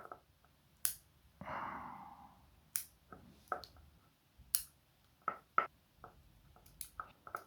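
Bonsai pruning scissors snipping cypress foliage: a scattering of short, sharp clicks about a second apart, with a soft breath about a second and a half in.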